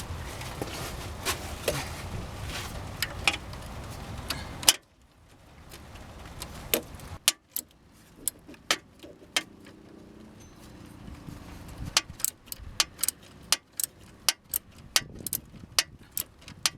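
Sharp metallic clicks of a ratchet wrench turning an alternator belt's tensioning bolt: scattered at first, then a quicker run of about two to three clicks a second in the last few seconds. A steady low background noise under the early clicks cuts off abruptly about five seconds in.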